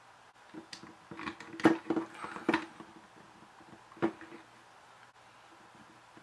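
Small hard-plastic playset pieces clicking and tapping as they are handled and pressed into a plastic Polly Pocket compact: a quick run of light clicks in the first three seconds, and one more about four seconds in.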